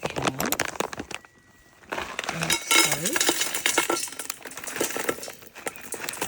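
Utensils and containers clinking and clattering during food preparation: many quick sharp clicks, with a brief lull about a second in.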